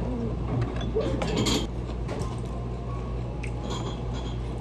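Restaurant room noise: a steady low hum with a few light clicks and clinks of tableware about a second and a half in.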